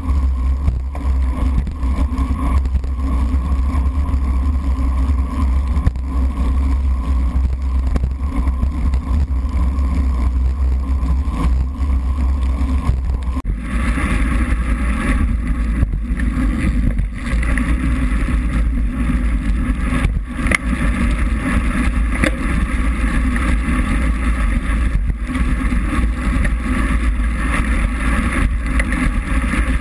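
Wind rumble and wet road noise from a road bike racing on rain-soaked pavement, picked up muffled through a waterproof GoPro housing mounted on the bike. It is a loud, steady rumble that changes abruptly about halfway through, with more hiss.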